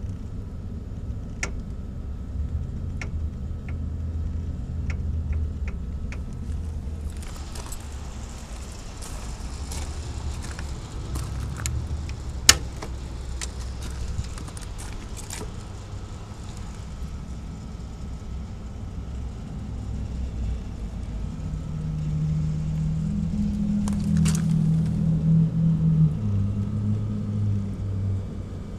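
Kubota SQ3170 generator's D1703 diesel engine running steadily, with scattered light clicks and one sharp click about halfway through. In the last several seconds it grows louder, with a hum whose pitch shifts in steps.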